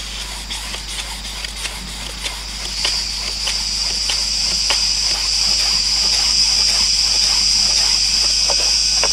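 Repeated scraping strokes, about two to three a second, as a hand tool is pushed along a staked bamboo pole, shaving fine fluffy fibres for fire tinder. A steady high insect buzz comes in about three seconds in and grows louder until it is the loudest sound.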